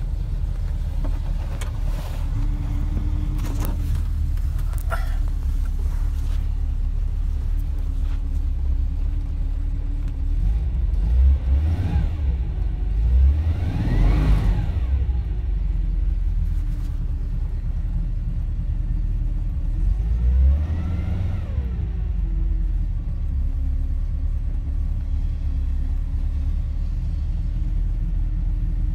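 Ford 200 inline-six with a Clifford 6-into-1 header and Weber 38/38 carburettor idling steadily at about 1000 rpm, heard from inside the cabin. It is revved in a few quick blips near the middle and once more about two-thirds of the way in, then settles back to idle.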